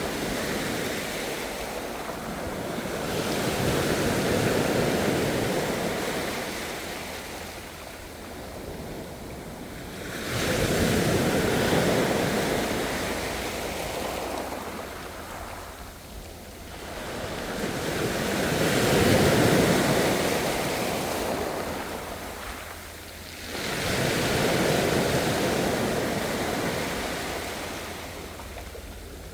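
Ocean surf: waves breaking and washing in, four swells that each rise and then fade, two of them arriving with a sudden crash.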